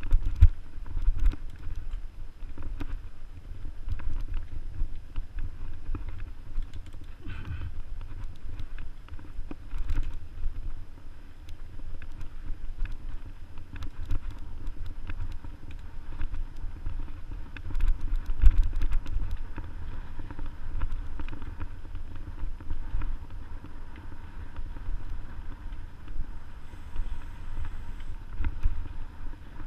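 Mountain bike riding over a bumpy dirt forest trail: rattles and ticks from the bike over roots and ruts, over a low rumble of wind buffeting the action camera's microphone.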